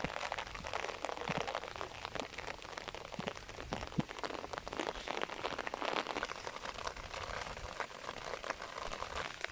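Steady rain falling: an even hiss with a dense patter of many small, sharp drop hits.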